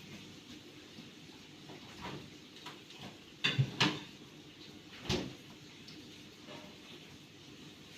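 Three sharp knocks in quick succession about three and a half seconds in, then a single knock about a second later, over a low steady hiss.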